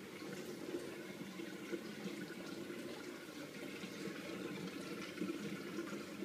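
Steady trickling and bubbling water of a running aquarium.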